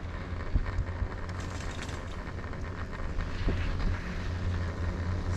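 Steady wind buffeting the microphone, with a constant low rumble, heard while riding a Doppelmayr detachable quad chairlift.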